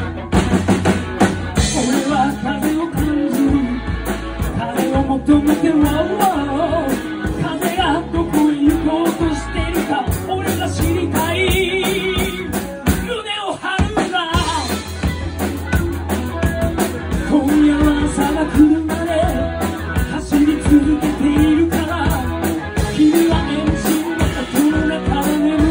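Live rock band playing: drum kit, upright bass and electric guitar, with a man singing into a microphone over it.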